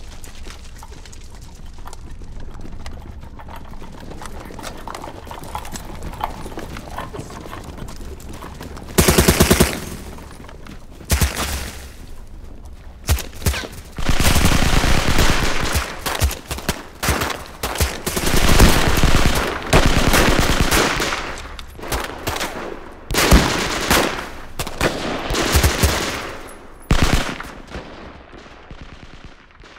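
Bursts of automatic gunfire mixed with single shots over a low rumble. The first long burst comes about a third of the way in, further bursts follow every second or two, and the firing dies away near the end.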